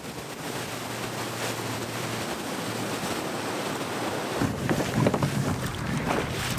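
Wind buffeting the microphone and water rushing and splashing along the hull of a bass boat under way on choppy water. Heavier gusts and splashes start about four and a half seconds in.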